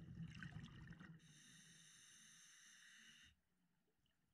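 Scuba diver breathing through a regulator underwater: a burst of exhaled bubbles for about a second, then a steady hiss of air drawn through the regulator for about two seconds, which stops abruptly.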